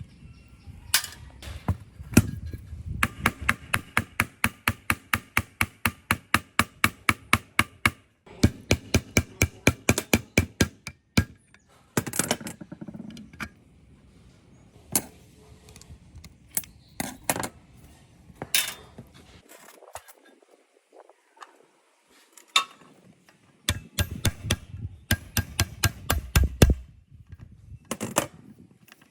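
Hammer tapping on metal in fast runs of even strokes, about five a second, each strike ringing, with scattered single knocks between the runs.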